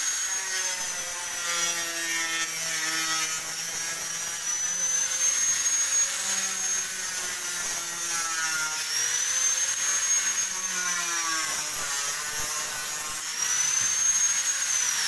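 Corded angle grinder with a cutting disc cutting through a fiberglass frame rib, a steady high whine that dips in pitch several times as the disc bites into the laminate and rises again as it eases off. Right at the end the motor is switched off and its pitch starts to fall as the disc spins down.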